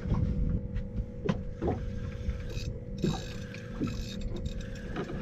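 Fishing reel being cranked against a hooked fish on a bent rod, its gears turning with scattered clicks, over a low rumble of wind and water.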